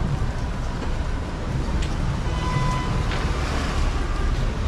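City street ambience: a steady rumble of passing traffic under an even wash of street noise, with a few faint short tones and clicks.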